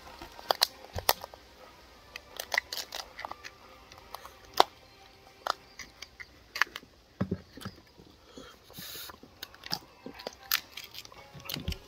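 Coconut crab shell pieces and eating utensils clicking and cracking sharply and irregularly, dozens of times, as the crab is picked apart. A short scraping rustle comes about nine seconds in.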